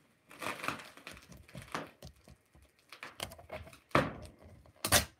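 Rustling handling noise and knocks from a rubber punch balloon being handled and bounced, with two louder thumps about four and five seconds in.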